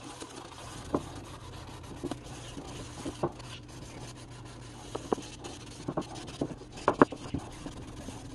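Sanding sponge rubbed back and forth along the steel shaft of a screwdriver resting on a wooden block, making a steady scratchy rubbing. Irregular sharp clicks from the sponge knocking against the shaft and block come through it, the loudest a pair about seven seconds in.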